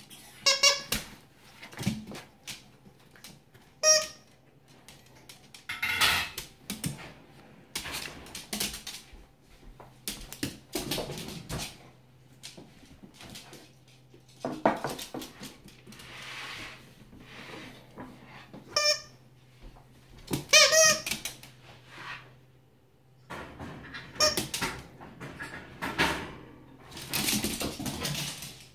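A dog's squeaky plush bird toy squeaking in short bursts, several times, while a small terrier grabs and plays with it, with scuffling noises in between.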